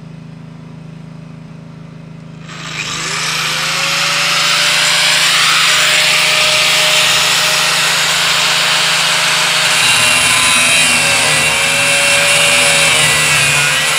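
Electric angle grinder starting about two and a half seconds in, its whine rising as the disc spins up, then cutting through steel sheet with a loud, steady grinding hiss; near the end the motor's pitch sags and wavers as the disc is pressed into the metal.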